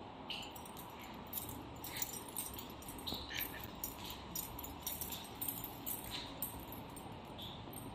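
Irregular light clicks and jingling, with a few brief high squeaks, over a steady background hum.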